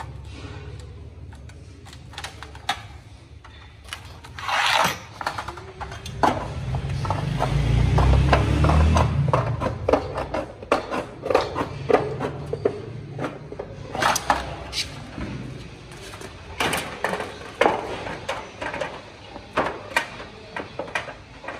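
Hand tin snips cutting thin stainless steel sheet: irregular sharp snips and clicks, with scraping as the sheet is handled. A low rumble swells and fades around the middle.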